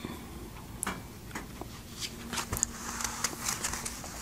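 Duster wiping marker off a whiteboard: a few light clicks and taps, then from about halfway through a soft, uneven rubbing hiss as the board is wiped.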